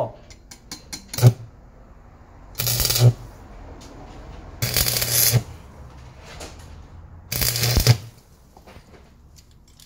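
Stick (arc) welder tack-welding a nut to a bolt: three short bursts of arc crackle, each under a second long, with a low buzz under each, after a few light clicks as the rod is set to the work.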